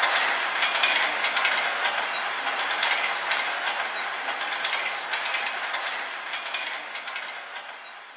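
Recorded train sound used as a track outro: a railcar rolling along the rails, a steady rumbling clatter with repeated clacks, fading out gradually.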